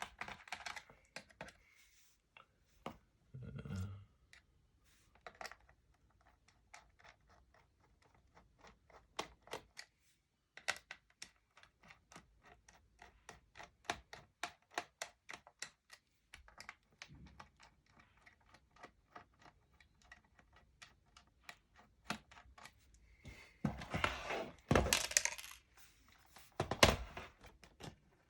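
Small, sharp clicks and ticks of a screwdriver turning out the screws in a laptop's plastic base, a few per second, with louder knocks and clatter near the end.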